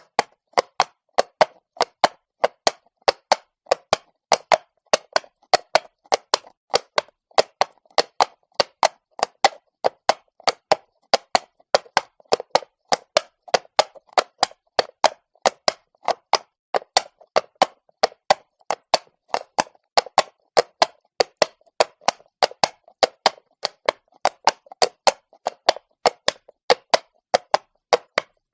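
Horse's hooves clopping on cobblestones at a walk: a steady, even rhythm of sharp clip-clops, about two to three a second.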